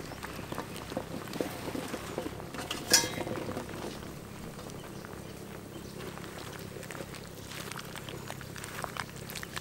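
Curry soup boiling in a large wok, a steady bubbling with small ticks, as chopped eggplant and onion are tipped in from a tray and splash into the liquid at the start. A single sharp clink about three seconds in.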